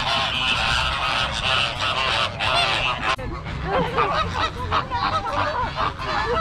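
A flock of flamingos honking, many goose-like calls overlapping in a dense chorus; after about three seconds the calls become fewer and lower.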